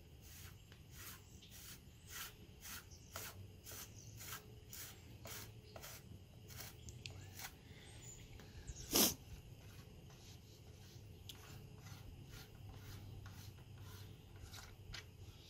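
A bottom bracket cup being hand-threaded anticlockwise into a bicycle frame's bottom bracket shell: faint light clicks and rubbing about two a second as the fingers turn and re-grip it, with one louder click about nine seconds in.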